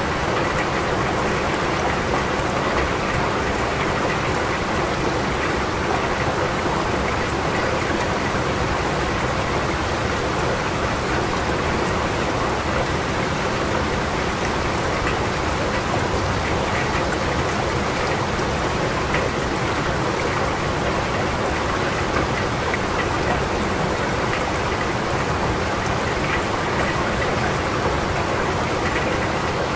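Steady rain falling, an even dense hiss of drops that holds at one level throughout.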